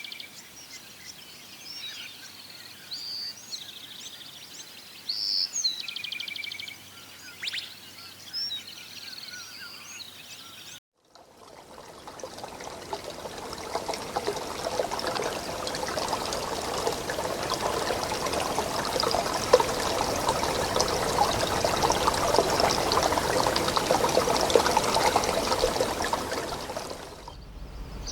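Birds chirping and trilling for about ten seconds, then an abrupt cut to a steady rush of running water that fades in and grows louder.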